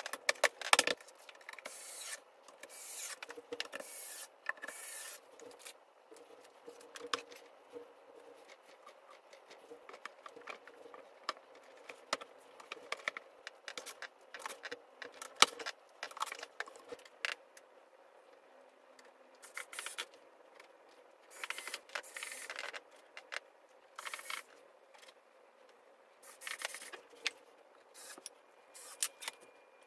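Furniture-assembly handling noises: wood-laminate panels rubbing, scraping and knocking, with small clicks and rattles of hardware, in scattered short bursts with quiet gaps between them.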